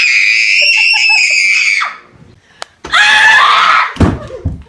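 A girl screaming in fright: one long, very high scream held for about two seconds. About a second later comes another shorter scream, and a few thumps near the end.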